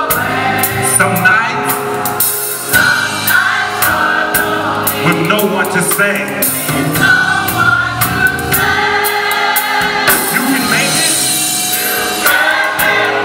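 Gospel choir singing in full, led by a male soloist on a handheld microphone.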